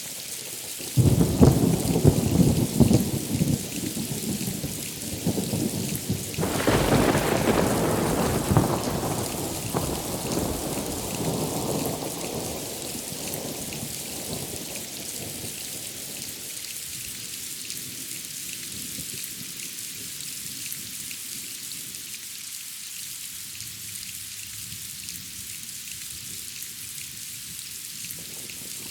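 Steady heavy rain with thunder: a sudden loud clap about a second in that rumbles for a few seconds, then a second crash around six seconds in that rolls and fades away over the next ten seconds, leaving the rain alone.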